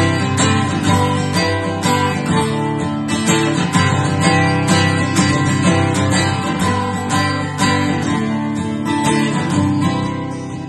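Acoustic guitar strummed in a steady rhythm, chords ringing between the strokes. It plays alone as an instrumental break in a song, getting a little softer near the end.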